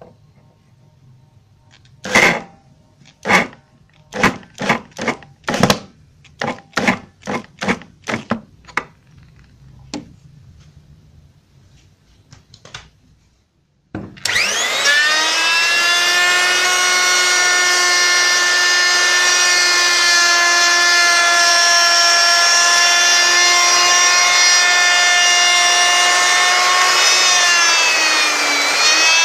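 An electric drill run in about ten short trigger bursts at the base plate of a circular saw. Then a trim router starts with a quick rising whine and runs at a steady high speed. Its pitch sags briefly near the end as the bit bites into the wood, then recovers.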